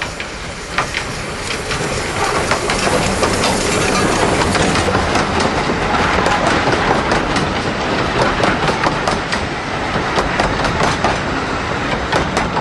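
Narrow-gauge steam train passing close by, growing louder as the locomotive approaches, then the wheels clicking irregularly over the rail joints as the coaches go past.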